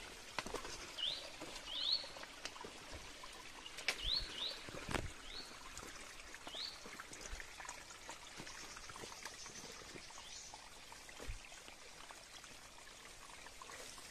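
Small birds calling with short, high, rising chirps, repeated several times through the first half, over a faint steady trickle of water. A few sharp clicks and taps come in between.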